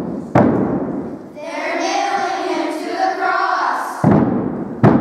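Mallet blows on a wooden block, the staged nailing to the cross: one sharp knock just after the start, then two more about a second apart near the end. Between them a voice is drawn out for a couple of seconds.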